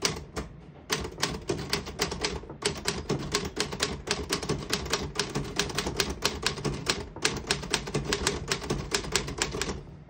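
A 1940 Royal KMM manual desktop typewriter being typed on: a quick, uneven run of sharp key strikes, about five a second, with a brief pause about seven seconds in. All the keys work and none stick.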